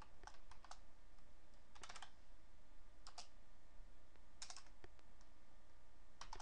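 Computer keyboard keystrokes: a few short clusters of key taps with pauses between them as a line of code is typed and Enter is pressed.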